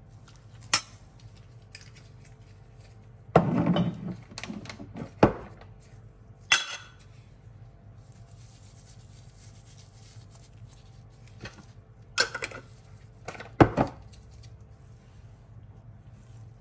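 A metal spoon clinking and scraping against a stainless steel mixing bowl while stirring a chopped vegetable salad: about five sharp clinks spread out, and a short rough stretch of scraping about three and a half seconds in.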